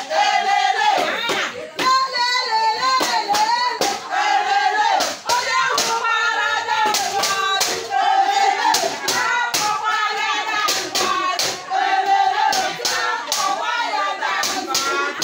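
A group of women singing together, with hand clapping keeping a steady beat.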